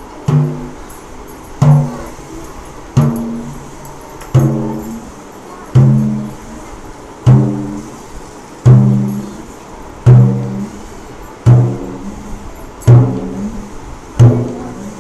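Bass head of a dhol struck about once every second and a half, eleven strokes in all. Each stroke gives a low ringing note that fades before the next, as the bass side is tested while it is set up and tuned.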